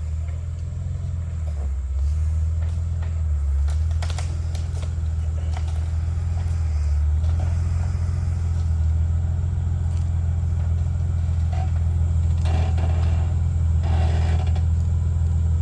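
Jeep Wrangler LJ's straight-six engine running at low revs as it crawls and backs over rocks, its steady rumble rising and falling with the throttle. A few knocks and scrapes come near the end.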